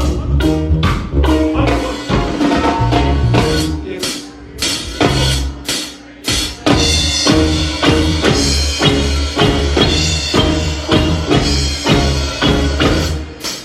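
A roots reggae band playing live, with a steady drum-kit beat and a deep bass line.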